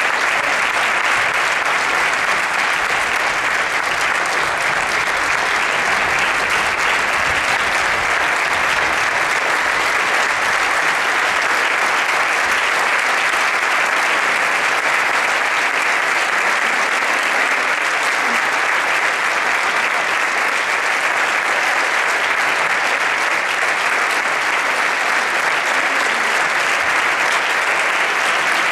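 An audience applauding, a dense steady clapping that carries on unbroken.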